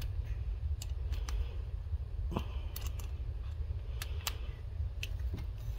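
Small screwdriver bit clicking and scraping in the handle screws of a Grayman SATU folding knife as they are driven in: about nine scattered sharp ticks with a few short scrapes, over a steady low hum.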